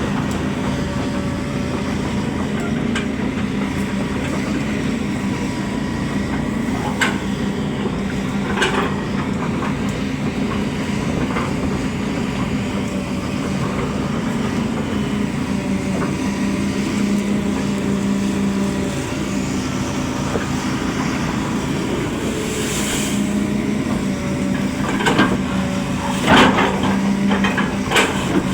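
Excavator diesel engine running steadily, with a few sharp knocks and clanks, most of them near the end, and a short hiss about two-thirds of the way through.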